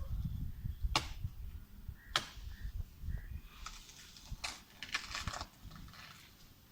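Two sharp knocks about a second apart, then a stretch of irregular rustling and scraping, over a low rumble.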